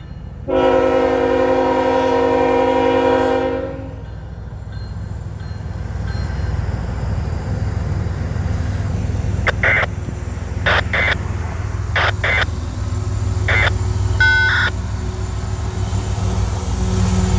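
Diesel freight locomotive horn sounding one long blast of about three seconds, a chord of several notes. It is followed by the low rumble of the CSX locomotive and train, growing louder as it rolls up and past, with a few sharp clicks along the way.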